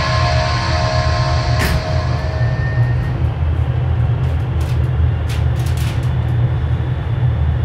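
Steady low rumble of a paint spray booth's ventilation fans running, with a few short hisses about halfway through. Background music fades out in the first couple of seconds.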